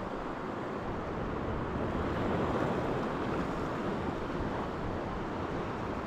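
Black Sea surf washing on the shore, swelling a little about two seconds in, with wind on the microphone.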